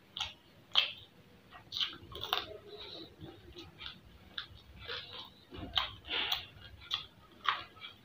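Close-miked mouth sounds of someone eating tandoori quail: wet smacks and sharp clicks of chewing and lip smacking at an irregular pace.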